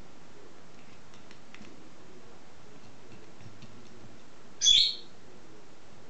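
A pet parrot gives one short, shrill chirp a little before the end. Earlier there are a few faint ticks, like a beak pecking at a dish.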